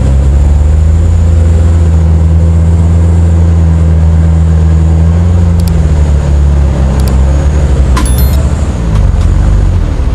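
Mitsubishi Canter truck's diesel engine held at high revs under heavy load as the truck pushes through deep mud. It is a loud, steady drone that wavers and eases about six seconds in, with a few short clicks.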